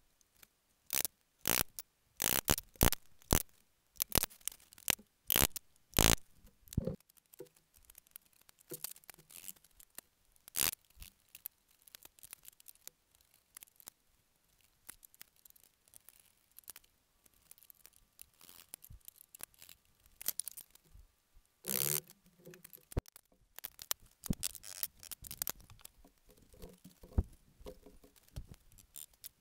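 Chisels working dovetail joints in wood: a quick run of sharp knocks for the first several seconds as the waste is chopped out, then quieter scattered paring, clicking and scraping, with one louder scraping burst a little past the middle.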